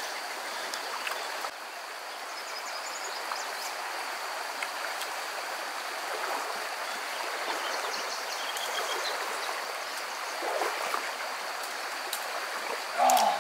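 Small creek's water running over shallow rocky riffles: a steady rushing. A brief louder sound comes near the end.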